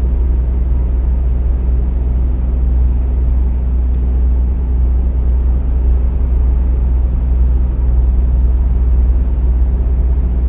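Articulated lorry's diesel engine and road noise heard from inside the cab: a steady low rumble with a constant hum, the truck crawling in traffic.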